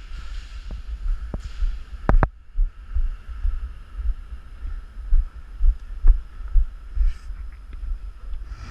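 Irregular low thumping and rustle of movement on a camera microphone, with a few sharp clicks, including a quick pair about two seconds in.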